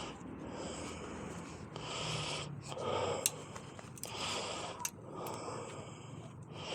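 A person breathing heavily and loudly, a noisy breath in or out about every second, while straining to fit a bicycle wheel. A few sharp clicks sound in between.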